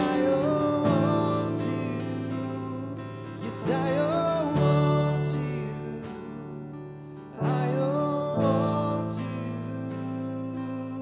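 Live worship band playing a slow song on acoustic guitar and keyboard, with voices singing short phrases separated by held chords.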